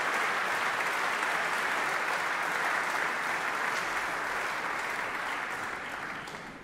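Concert audience applauding steadily, a dense patter of many hands clapping, which fades away near the end.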